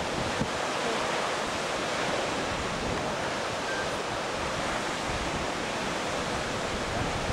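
Steady rushing noise of wind and ocean surf, with low buffeting from wind on the microphone.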